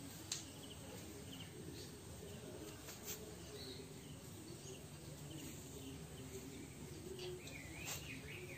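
Faint outdoor background with scattered short bird chirps, clustered near the end, and a few light clicks.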